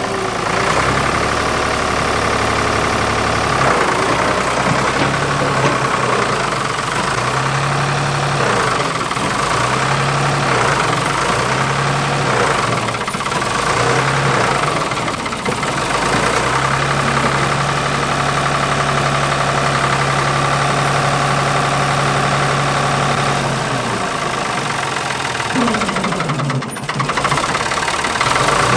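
Ford 555 backhoe loader's diesel engine running under work while the front loader scoops dirt. Its steady low note keeps stepping up and dropping back in stretches of one to several seconds.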